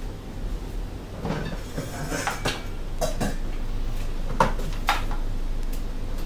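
Metal utensils clinking against a wok and dishes: a handful of separate clinks a second or so apart, with no stirring.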